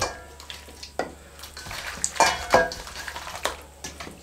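Hands turning and kneading raw mutton pieces in a wet spice marinade in a stainless steel bowl: wet squelches and slaps, several sharp ones about a second apart and two close together a little past the middle.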